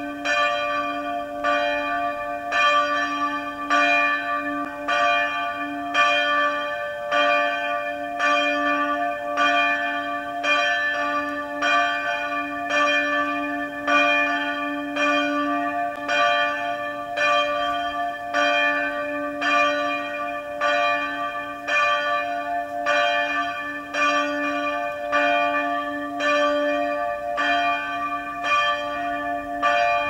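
Church bell of the Catholic Motomachi Church tolling, struck evenly about once a second. Each stroke sounds the same set of ringing pitches, and a low hum carries on between strokes.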